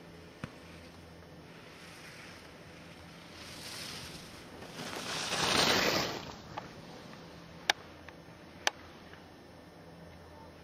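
Skis carving on hard-packed snow as a giant slalom skier passes close by: a scraping whoosh that swells and fades about halfway through. A few seconds later come two sharp clicks about a second apart.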